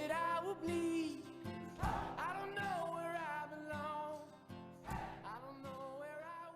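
Background song: a voice singing over acoustic guitar, with a steady beat, fading down near the end.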